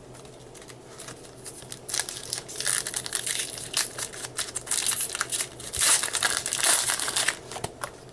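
A foil trading-card pack wrapper being torn open and crinkled by hand: a stretch of crackling that starts about two seconds in and stops near the end.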